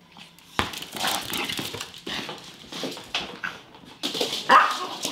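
Several small dogs scampering and playing, their claws clicking and scrabbling on a hardwood floor, with a few short barks near the end.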